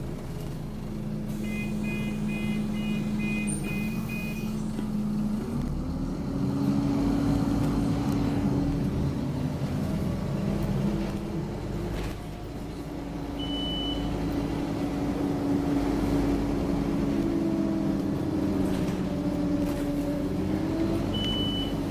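Onboard sound of a Scania OmniCity N230UD double-decker bus: its diesel engine runs steadily, then its note rises about six seconds in as the bus gets under way, shifting again a few times while driving. A run of short high electronic beeps sounds in the first few seconds.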